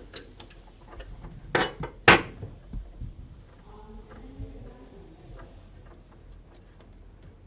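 Scattered metallic clicks and clinks of a wrench on the water-line fittings under a sink as the faucet valve blocks are disconnected, with two sharper knocks about a second and a half and two seconds in.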